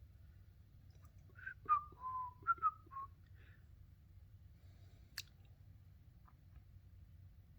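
A person whistling a brief tune of half a dozen short notes, stepping down in pitch, about a second and a half in. A single sharp click follows a few seconds later.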